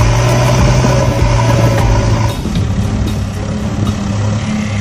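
Truck engine running steadily, a low drone whose note shifts slightly a little over two seconds in.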